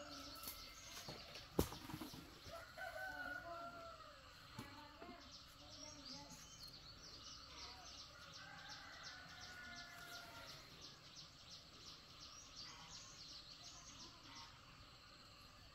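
Faint outdoor ambience: a rooster crowing twice, with small birds chirping quickly and a single sharp click about one and a half seconds in.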